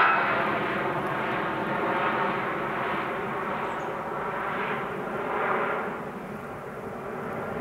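Jet engines of a DHL Boeing 757-200 climbing away after takeoff: a steady roar that fades as the aircraft recedes, with slow wavering swells in the sound.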